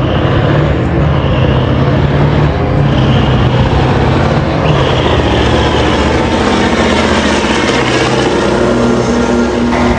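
Semi tractor's big diesel engine pulling hard at full throttle as the truck accelerates down the strip and passes close by; loud throughout, with its pitch shifting a few times. The heavy black smoke from the stacks shows it is under full load.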